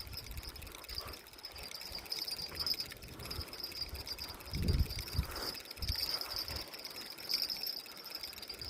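Night insects, crickets, chirring in a steady high pulsing trill, with a few low thumps about halfway through.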